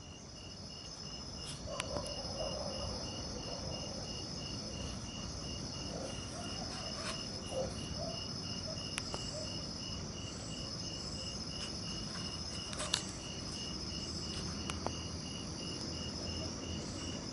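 Crickets and other insects chirping: a steady high trill with a second insect pulsing evenly. A few faint clicks come through.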